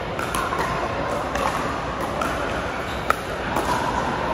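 Pickleball paddles hitting a plastic ball in a rally: short sharp pops about a second apart, the loudest about three seconds in, echoing in a large indoor hall over a steady background din.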